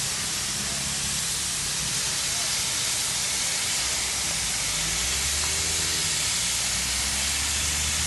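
Steady hiss of heavy rain, with a low rumble underneath that grows stronger about five seconds in.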